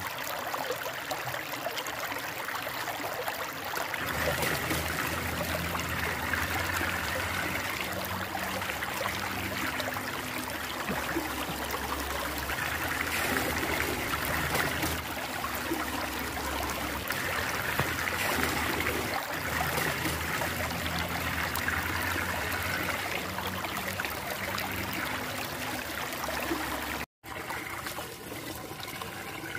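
Muddy water swirling and draining down a whirlpool vortex, a steady rush of water. A low droning hum runs underneath from about four seconds in, and the sound cuts out for an instant near the end.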